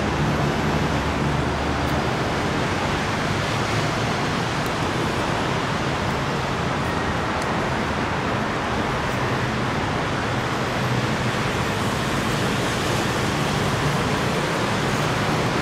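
Steady roar of city road traffic mixed with a BTS Skytrain electric train running slowly towards the station on its elevated track.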